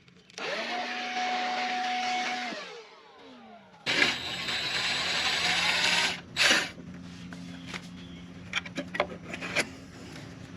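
Cordless drill/driver running in two bursts of about two seconds each. The first spins up to a steady whine and winds down again. A short burst and a few light clicks follow near the end.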